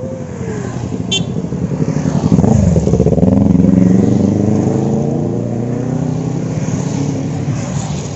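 Several motorcycles and motor scooters riding past one after another, engines running, the loudest one about two and a half seconds in with its engine note dipping and then climbing. A short high beep about a second in.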